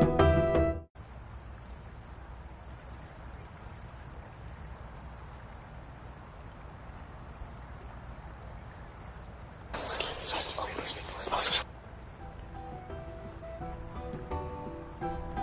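Crickets chirping: a steady, evenly pulsing high-pitched trill, starting as the music cuts off about a second in. About ten seconds in, a loud hissing burst lasts nearly two seconds, and faint music comes back near the end.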